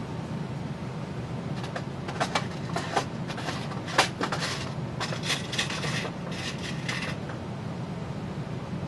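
Fleece-lined fabric hammock rustling as it is handled and pulled away from a hand grommet press, with a few small clicks and knocks between about two and four seconds in, over a steady low hum.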